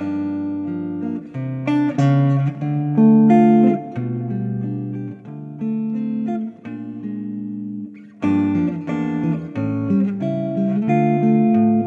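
Acoustic guitar instrumental music, plucked single notes and chords, with a short break in the playing about eight seconds in.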